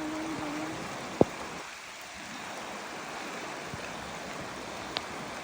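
River water rushing steadily. A single sharp knock about a second in, and a lighter click near the end.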